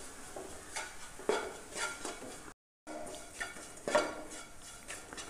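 A spatula stirring and scraping spice powders through sautéed onions in a nonstick pan, in a run of uneven scrapes and knocks while the powders roast. The sound drops out for a moment about halfway through.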